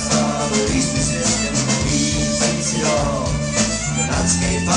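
Folk-punk band playing live through a club PA: drums, bass and guitars with a folk melody line over them.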